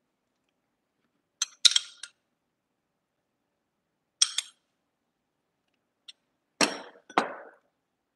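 A metal spoon clinks against a small ceramic bowl in a few short, sharp strikes. A pair of fuller, duller knocks comes near the end, like crockery set down on the counter.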